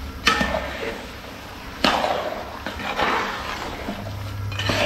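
A large metal ladle scraping and knocking against a big cooking pot while melted jaggery and tamarind curry is stirred. There are about three strokes, each opening with a knock and trailing off in a scrape.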